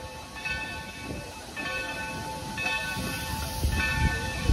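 Steam locomotive moving off slowly, its bell ringing about once a second over low chuffing and rumble.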